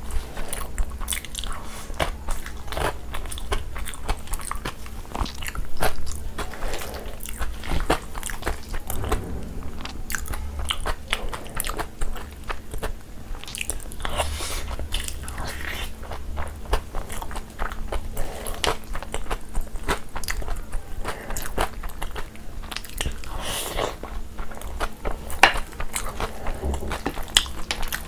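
Close-miked chewing of mac and cheese topped with Flamin' Hot Cheetos: a steady stream of crisp crunches and sharp crackles as the puffed corn snacks break between the teeth, with wet mouth sounds from the cheesy pasta.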